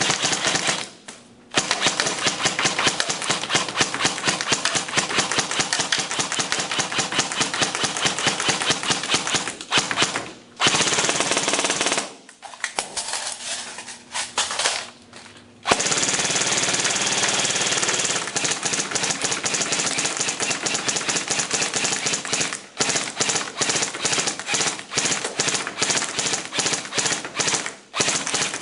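Lancer Tactical M4 airsoft electric gun (AEG) firing full-auto on an 11.1 V LiPo battery, in long continuous bursts with a few short breaks. Near the middle the fire stutters in shorter bursts for a few seconds. It is being run hard enough to overheat.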